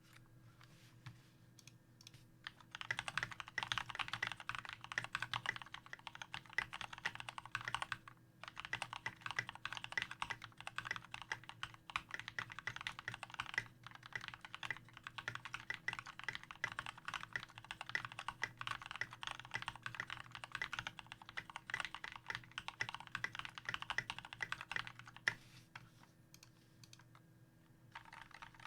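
Fast typing on a modded Glorious GMMK TKL mechanical keyboard with lubed Kailh Speed Silver linear switches and Tai-hao PBT doubleshot keycaps: a dense run of quick keystrokes. The typing starts a few seconds in, stops briefly once, and thins to a few scattered keystrokes before picking up again near the end.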